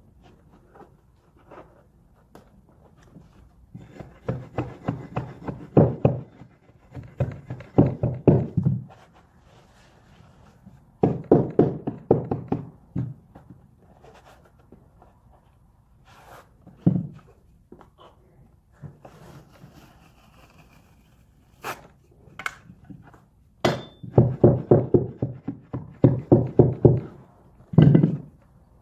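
Mallet tapping a stair nosing strip down onto the step edge: three runs of quick, dull knocks, each lasting a couple of seconds, with a few sharper single knocks in between.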